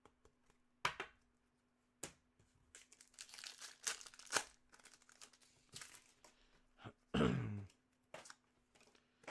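A hockey card pack's wrapper being torn open and crinkled in the hands, with scattered crackles and clicks as the cards are handled. A short, louder sound comes a little after seven seconds in.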